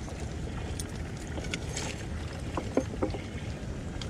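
Steady wind and water noise aboard a small open skiff drifting on the bay, with a few light knocks and taps about two and a half to three seconds in.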